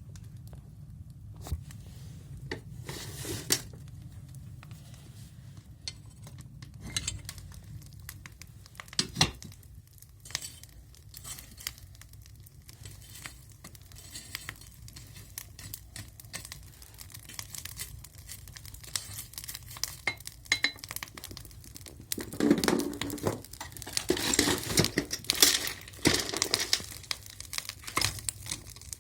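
Stove burning with a steady low hum of draft through the firebox, with scattered crackles and small metallic clinks. From about two-thirds of the way in, louder rustling and clattering join it.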